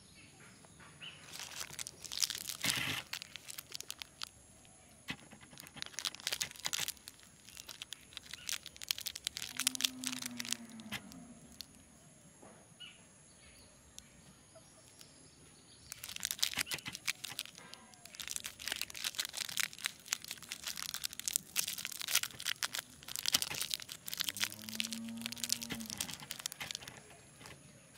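Plastic candy wrapper with a foil lining crinkling and tearing as fingers work it open, in two long bouts of crackling with a lull between them.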